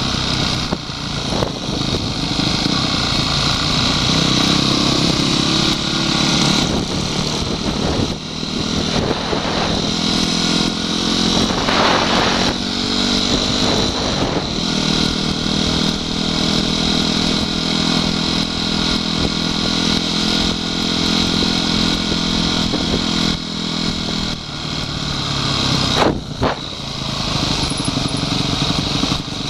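Honda CRF250X enduro bike's single-cylinder four-stroke engine running at road speed under the rider, its note stepping up and down several times with the throttle.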